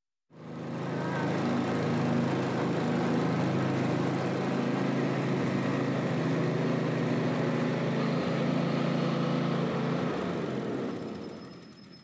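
Riding lawn mower's small engine running steadily as the mower drives across the grass. The sound fades in during the first second and fades out near the end.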